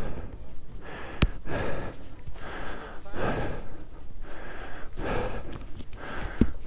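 A mountain biker breathing hard and fast right at the helmet microphone, more than a breath a second: out of breath and worn out after a roughly seven-minute downhill run. A single sharp click about a second in.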